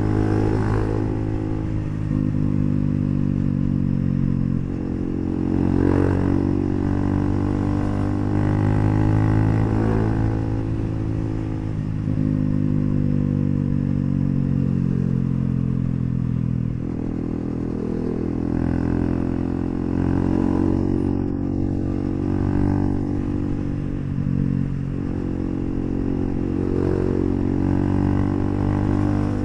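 Bajaj Pulsar NS400Z's single-cylinder engine through an aftermarket HP Corse exhaust, riding along, its note falling and rising again several times with throttle and gear changes.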